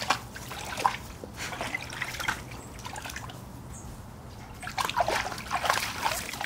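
A yellow Labrador retriever wading in a shallow plastic dog pool, its legs splashing and sloshing the water in short irregular bursts. Near the end comes a louder flurry of splashing as it climbs out over the rim, water pouring off its leg.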